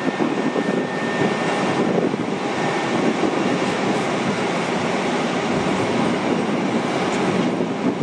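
Boeing 767-300ER airliner's twin jet engines on final approach with landing gear down: a steady, loud roar, with a faint high whine in the first second or so.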